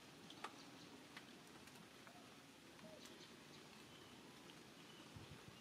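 Near silence: faint outdoor background with a few scattered soft ticks.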